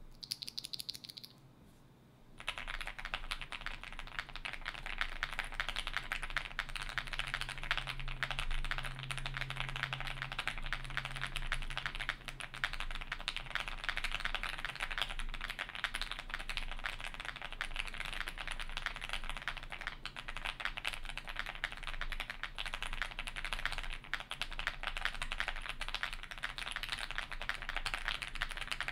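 Continuous fast typing on a Zoom65 mechanical keyboard fitted with stock FLCMMK Ice Mint linear switches, a polycarbonate plate and full foam, under GMK keycaps: a dense, even clatter of keystrokes with a deadened, 'marbly' tone. After a few stray keypresses, the typing starts in earnest about two seconds in.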